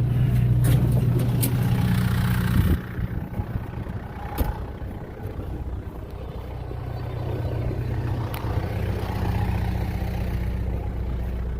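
Kubota M6040 tractor's diesel engine running at idle. About three seconds in there is a knock and the engine sound drops sharply, then grows steadily louder again over the second half.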